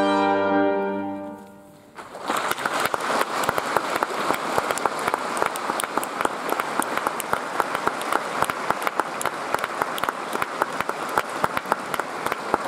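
The final held chord of the trumpet solo and brass accompaniment dies away over about a second and a half, then audience applause begins about two seconds in and carries on steadily.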